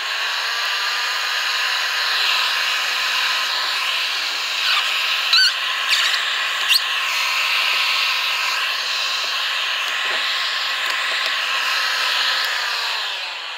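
Electric heat gun blowing hot air steadily onto the end of a PVC pipe to soften it for a socket join. Its fan motor winds down near the end, and a few short knocks of the pipe being handled come in the middle.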